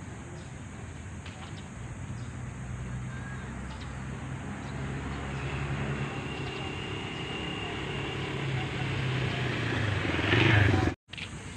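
A motor vehicle's engine approaching and growing steadily louder, loudest about ten and a half seconds in, then cut off suddenly.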